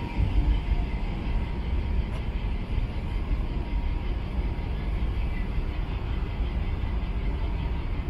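Steady low rumble of outdoor background noise, fluctuating slightly in level, with no distinct events.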